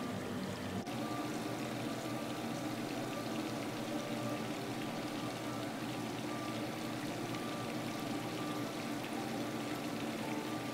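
Battered, stuffed zucchini flowers deep-frying in a pot of hot oil: a steady, dense sizzle of bubbling oil.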